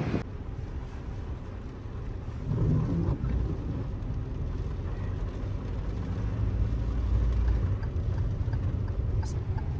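Car being driven, heard from inside the cabin: a steady low engine and road rumble.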